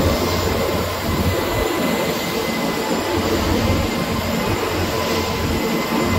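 Paperboard machine running: its rollers, felts and drives turn with a steady mechanical rumble and hiss, and a thin steady whine sits above it.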